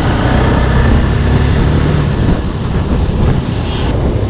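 TVS Apache RR310's single-cylinder engine running steadily while the motorcycle is ridden, mixed with wind rushing over the microphone, with a brief click near the end.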